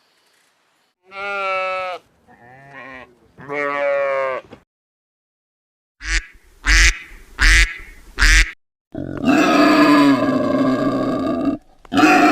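A string of separate animal calls. First come two drawn-out pitched calls of about a second each, then four short loud grunts, then one long call of about two and a half seconds.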